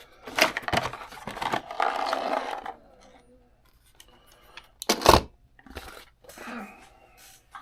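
Cardboard and plastic packaging rustling and tearing as an RC car is taken out of its box, then a sharp knock about five seconds in and softer rustling after it.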